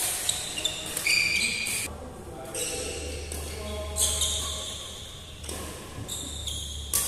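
Badminton rally: sharp cracks of rackets striking the shuttlecock, near the start, about a second in, about four seconds in and near the end. Between them are short high squeaks of court shoes on the hall floor.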